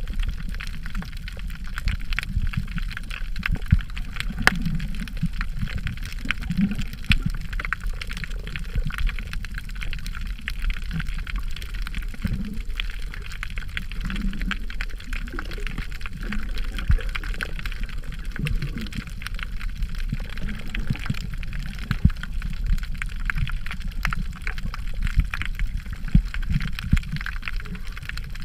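Muffled underwater water noise picked up by a GoPro camera in its waterproof housing: a steady wash with gurgling and many small clicks.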